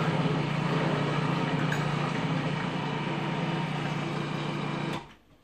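Countertop food processor motor running steadily, mixing chocolate cookie batter, with a low, even hum. It switches off abruptly about five seconds in.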